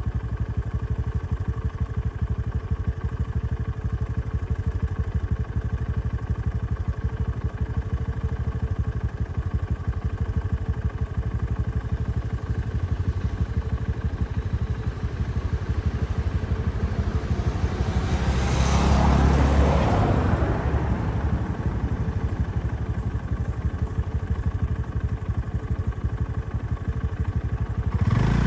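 A vehicle engine idling steadily, with a louder rushing swell lasting about two seconds about two-thirds of the way through.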